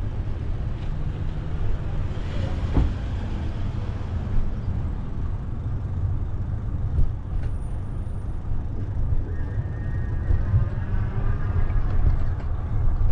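A steady, churning low rumble of wind buffeting the microphone on a moving bicycle, over road traffic noise. A vehicle swells past about two to three seconds in.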